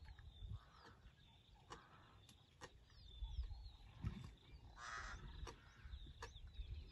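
Faint bush ambience: small birds chirping, with one louder harsh caw-like bird call about five seconds in, over scattered faint clicks.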